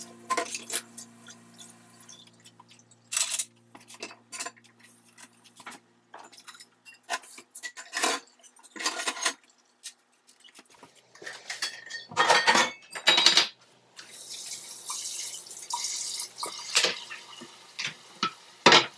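Dishes and cutlery clinking and clattering as they are handled at a kitchen sink, in a string of separate knocks, with water running for a couple of seconds about three-quarters of the way through.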